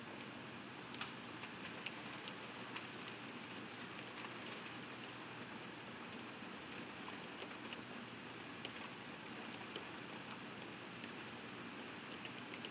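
Steady rain heard through a window pane, with scattered sharp ticks of drops striking the glass.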